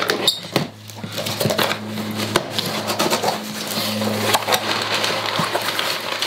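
A cardboard shipping box being opened by hand: tape slit, flaps pulled open, and crumpled brown packing paper rustling and crackling near the end. It comes as a dense run of irregular crackles and clicks over a steady low hum.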